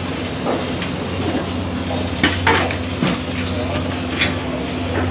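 Sharp metal clinks and clanks, a few in quick succession about two seconds in and one more about four seconds in, over a steady machine hum.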